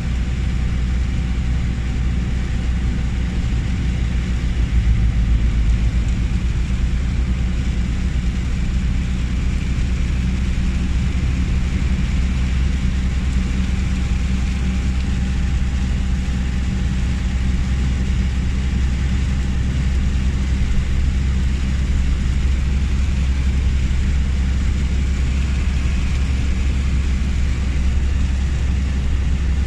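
Steady low rumble of a car driving on a motorway in heavy rain: engine and tyre noise with an even hiss of rain and road spray over it, unchanging throughout.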